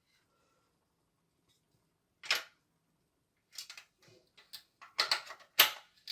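Sharp clicks and knocks of washing-machine parts being handled and fitted back in place: one click about two seconds in, then a quickening run of clicks from about three and a half seconds on.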